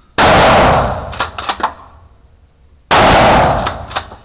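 Two 12-gauge shotgun blasts from a Remington 870 pump-action loaded with 00 buckshot, about two and a half seconds apart, each very loud with a long echoing tail. Between and after the blasts come a few sharp clicks as the pump action is worked.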